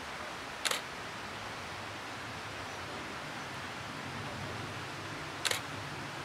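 Photo camera shutter clicking twice, about five seconds apart, over a steady background hiss.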